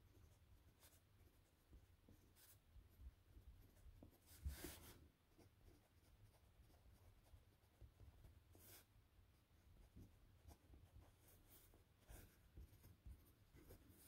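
Faint scratching and tapping of a Parker Jotter mechanical pencil's lead on grid paper as numbers and zigzag lines are written: a string of short strokes, the loudest about four and a half seconds in. The pencil body gives no rattle while writing.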